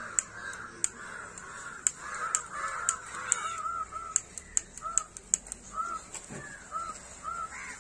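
About a dozen sharp clicks and snaps as a gun-style lighter is worked at the end of a matchstick chain and the matches catch and flare; they stop about five and a half seconds in. Birds call repeatedly in the background with short, pitched calls.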